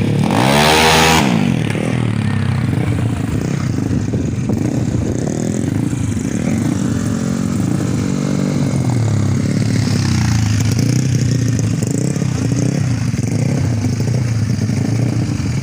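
Tuned Yamaha Mio scooter engines revving hard. One rises sharply in pitch and passes loud and close about a second in, then engines keep running and revving.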